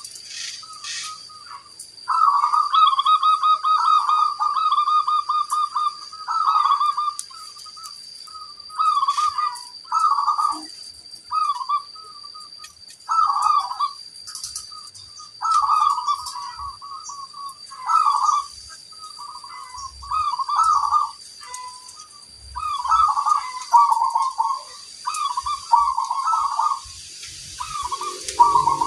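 Zebra doves (perkutut) cooing: short rolling, trilled coo phrases repeated one after another every second or two, the longest about two seconds in. A faint steady high-pitched tone runs behind them.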